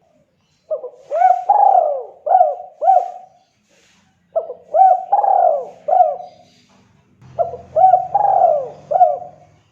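Spotted dove (tekukur) cooing: three phrases of about five coos each, the middle coo of each phrase longer and louder.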